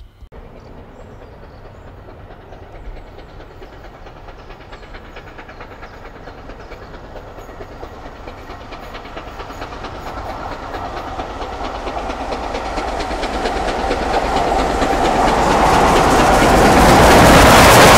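LNER A3 Pacific no. 60103 'Flying Scotsman', a three-cylinder steam locomotive, approaching at speed with a rapid, even exhaust beat. It grows steadily louder until it draws level near the end, where it is very loud.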